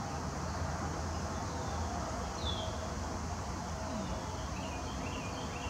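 Outdoor ambience: a steady high insect drone with a few short bird chirps, one a falling note about midway, over a constant low rumble.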